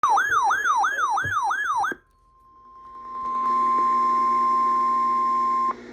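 An electronic siren-style alert warbles rapidly up and down, about three sweeps a second, and stops after about two seconds. Then the weather radio warning alarm, one steady high tone, fades in, holds and cuts off shortly before the end, announcing a National Weather Service warning broadcast.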